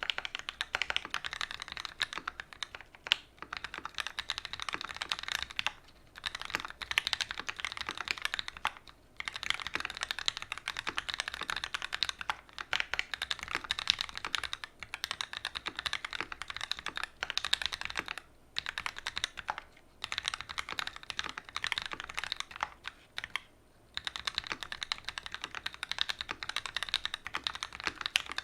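Fast typing on a custom mechanical keyboard with Gateron Ink Black linear switches, an aluminium plate and GMK doubleshot ABS keycaps. Dense runs of key strokes break off in short pauses every few seconds.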